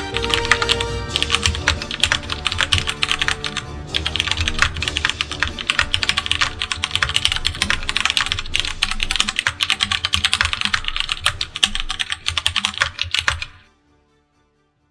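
Fast typing on a Das Keyboard Model S mechanical keyboard with Cherry MX switches: a dense, continuous run of key clacks with a couple of brief lulls, over background music. Both the typing and the music stop about a second before the end.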